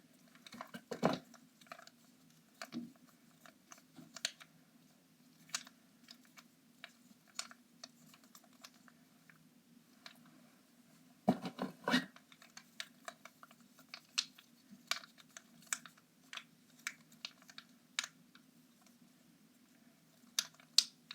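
Plastic infinity cube fidget toy being folded and handled, giving irregular clicks and snaps. The loudest clatter comes about a second in and again near the middle, over a faint steady low hum.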